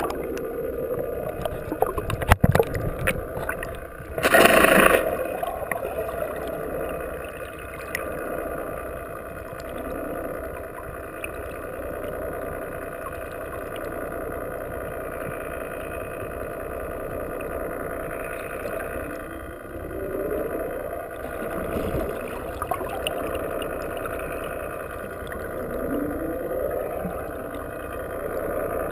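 Sportfishing boat's engine running steadily, with water washing along the hull. The engine pitch rises briefly a few times, and there is a short loud rush about four seconds in.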